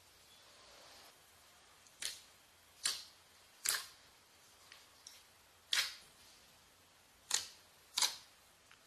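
Clear slime being pressed and stretched, trapped air bubbles popping with six sharp clicks at uneven intervals, plus a few fainter ones.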